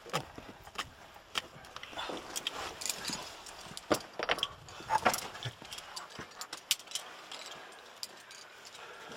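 Irregular clinks and knocks of metal climbing gear (carabiners and quickdraws) and scuffs on rock as climbers move, busiest in the middle of the stretch.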